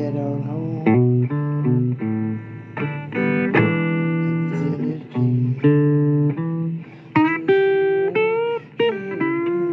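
Blues guitar playing an instrumental break of picked single notes and short chords, with bent notes that slide up in pitch past the middle.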